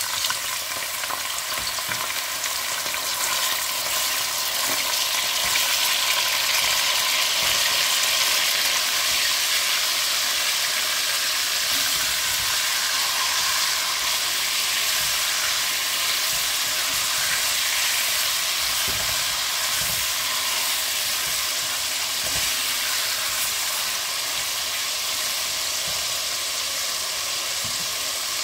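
Chunks of beef frying in hot oil in a cast-aluminium kazan: a loud, steady sizzle that builds over the first few seconds, with a spatula stirring the meat now and then.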